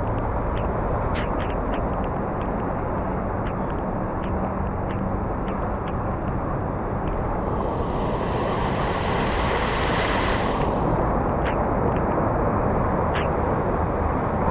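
Cars driving through deep floodwater: a steady rush of churned water and engine noise, with a louder hiss of spray for a few seconds about halfway through as a car pushes a bow wave past.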